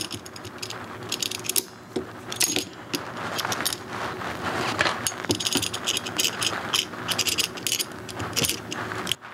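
Locking pliers being handled and clamped onto a plastic battery tray and lead-acid battery: irregular metallic clicks, rattles and scrapes with plastic knocks.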